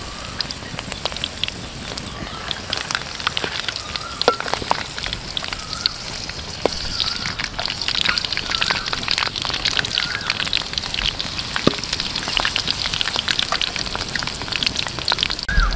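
Battered chicken hearts deep-frying in hot oil in a wok: a steady, dense sizzle with many small crackles and pops.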